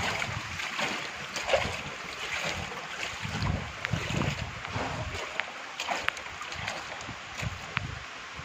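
Steady hiss of rain falling on wet gravel and garden, with gusts of wind rumbling on the phone microphone and scattered sharp ticks of drops.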